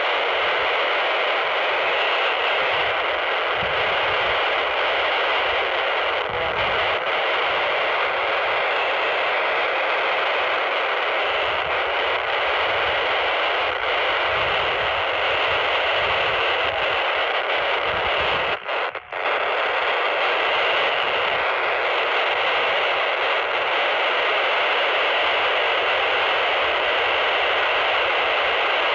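PNI Escort HP 82 handheld CB radio on FM receive with the squelch open, its speaker giving a steady band hiss with no station coming through. The hiss cuts out briefly twice about two-thirds of the way through.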